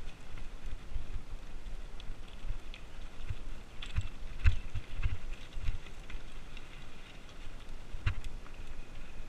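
Mountain bike clattering down a loose, rocky trail: irregular clicks and rattles as the tyres hit stones, over a low rumble with thumps, the hardest about four and a half seconds in.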